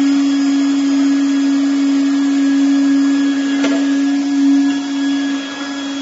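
TOP2000D hot air welding machine running at welding heat: a steady motor and blower hum with a strong low drone. A single click comes about three and a half seconds in, and the sound drops a little near the end.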